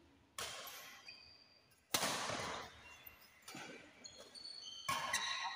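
Badminton doubles rally: rackets striking the shuttlecock four times, about every second and a half, each hit echoing in the hall, with short squeaks of court shoes near the end.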